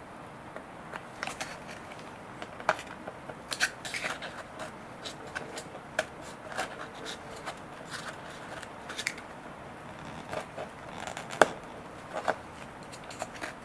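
Irregular small clicks and taps of metal forceps against a plastic servo frame and its pin and arm in a glider wing's servo bay, with one sharper click about two thirds of the way through.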